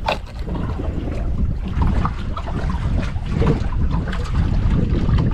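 Wind buffeting the microphone over sea water sloshing around a boat, with a single short knock right at the start.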